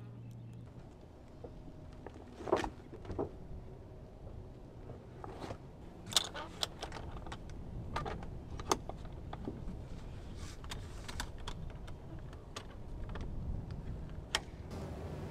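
Irregular sharp clicks and knocks of metal hardware being worked by hand: the latches on the front of a pop-up truck camper's roof being undone.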